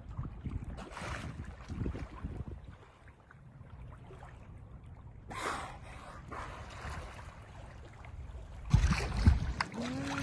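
Wind buffeting a phone's microphone over water moving around a small boat. About five seconds in, a short rushing whoosh as dolphins surface beside the boat. The low rumble grows louder near the end.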